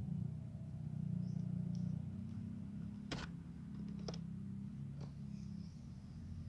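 Mother cat purring steadily while her kittens nurse, a low pulsing rumble, with three sharp clicks about three, four and five seconds in.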